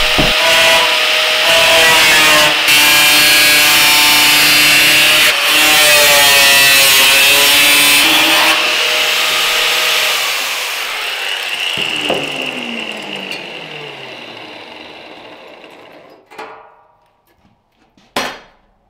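Angle grinder with a cut-off wheel cutting through the thin steel wall of an ammo can, a loud steady grinding whine. About ten seconds in it is switched off and its pitch falls as the wheel spins down over several seconds, followed by a couple of light knocks near the end.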